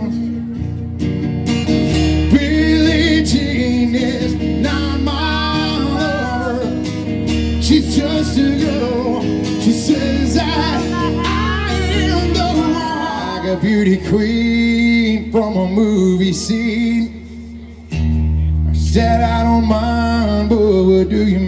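Live band playing through an outdoor PA: electric guitars, bass and drum kit with a sung vocal line. The band drops back briefly near the end, then comes in full again.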